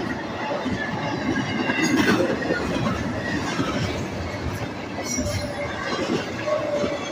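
Double-stack intermodal freight cars rolling past, steel wheels running and clattering on the rails in a steady, continuous noise, with a few sharper clanks about two and five seconds in.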